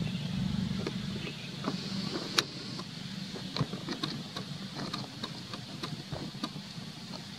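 Outdoor ambience: a steady low rumble, strongest in the first second or so, under a steady high hiss, with scattered small clicks and rustles. One sharp click comes about two and a half seconds in.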